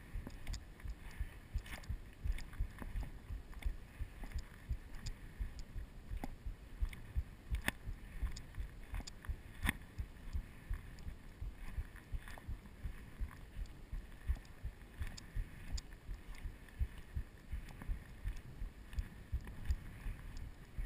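Footsteps of a walker on dry pine needles and rocky forest floor, a steady run of dull thuds with the carried camera jostling, with occasional sharp clicks of twigs or stones underfoot.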